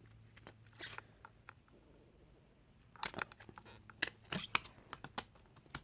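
A CD single's plastic-wrapped packaging being opened by hand: crinkling and tearing of the wrap with sharp clicks, sparse at first and then a quick flurry of clicks and crackles about three seconds in.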